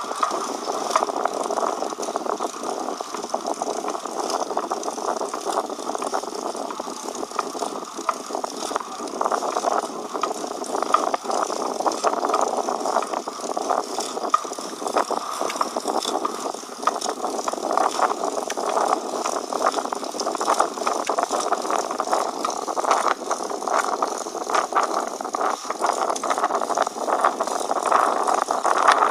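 Bicycle in motion with a continuous drivetrain noise full of small irregular clicks. The owner says the noise keeps on even after the derailleur was checked, and that it comes from the middle of the bike as well.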